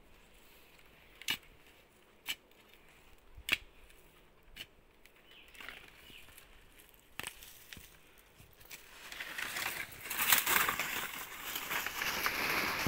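About five separate sharp knocks, then dry banana leaves and soil crackling and rustling loudly in the last few seconds, as an iron digging bar is jabbed in at the base of a banana plant to pry out a sucker.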